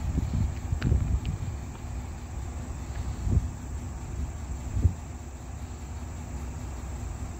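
Outdoor background noise with a low rumble of wind on the microphone and a few soft thuds from the camera operator's footsteps, about one, three and a half and five seconds in.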